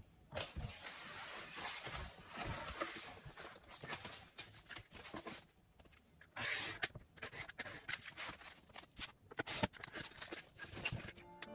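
A utility knife drawn along a ruler, slicing through watercolour paper in several scraping strokes, with small clicks and knocks from the knife and ruler being handled.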